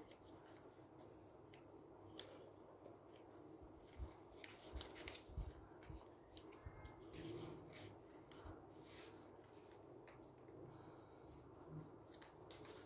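Faint, irregular crinkling and rustling of a sheet of paper being folded and creased by hand, with small ticks as fingers press the folds flat.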